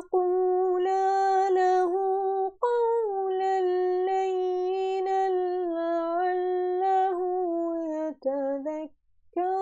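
A woman reciting the Quran in a slow, melodic chant (tajweed), drawing out long held notes. She sings three phrases, the second starting on a higher note and settling back down, with a brief pause near the end.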